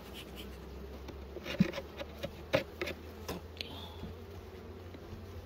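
Honeybees buzzing steadily around an open hive, with a few sharp clicks and knocks in the middle of the stretch.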